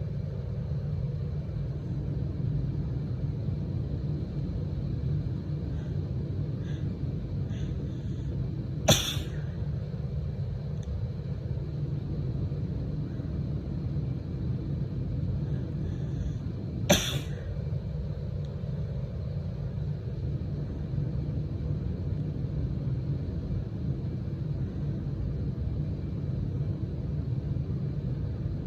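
A woman sneezes twice, each a short, sharp sneeze, the second about eight seconds after the first, over a steady low rumble.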